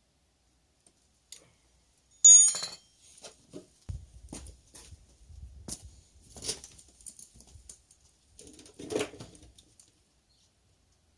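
Hand tools and small metal parts being handled: a sharp metallic clink with a ringing tone about two seconds in, then scattered light clicks, rustling and knocks, with a duller thump near nine seconds.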